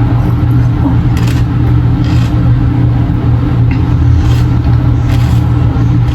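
A steady low hum throughout, with a few short crunches of potato chips being chewed, about four in all.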